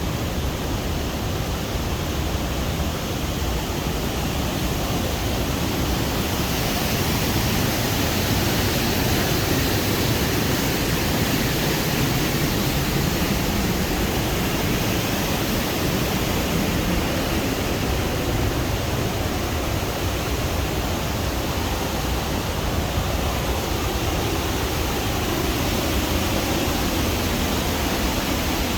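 Waterfall roaring steadily as water crashes down in a narrow rock gorge, loud and without let-up.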